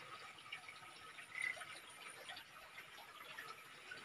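Faint outdoor ambience, with scattered light ticks and one brief high chirp about one and a half seconds in.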